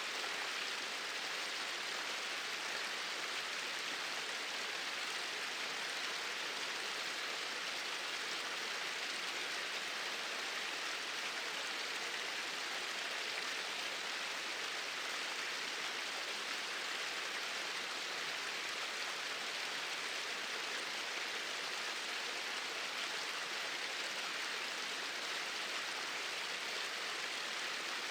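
Small waterfall splashing steadily: an even, hissy rush of falling water with little low rumble.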